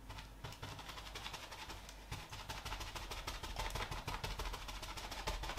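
Natural sponge dabbed and rubbed against a rough plaster wall, a rapid run of soft scratchy pats that grows a little louder.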